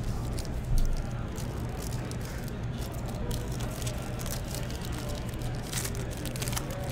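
Trading cards being handled and sorted by hand: a run of light rustles and clicks, a little louder about a second in, over a steady low hum.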